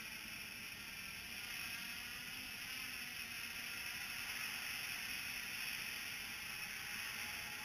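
Small multirotor drone's motors and propellers buzzing steadily at a distance as it holds its height on barometric altitude hold and moves sideways.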